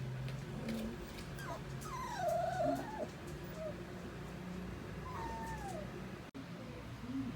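Doberman puppies whimpering: several thin, high whines that slide down in pitch, the longest and most wavering about two seconds in and another falling one about five seconds in.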